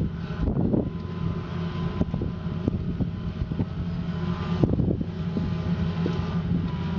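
Diesel engine of a 25-tonne amphibious long-reach excavator running steadily, with a faint steady whine and scattered knocks and clanks from the working machine, a cluster of them about two-thirds of the way in.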